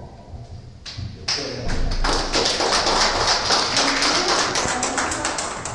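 Audience applauding: many hands clapping densely, starting about a second in and tapering off near the end.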